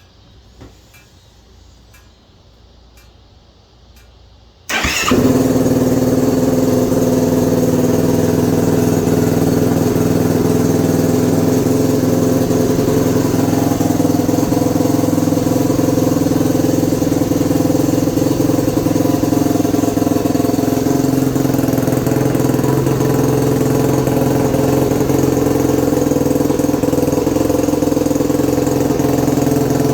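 A 2021 Yamaha YFZ450R SE quad's single-cylinder four-stroke engine, fitted with a Pro Design intake kit and still on its stock exhaust, starts suddenly about five seconds in after a few faint ticks, then settles into a steady idle.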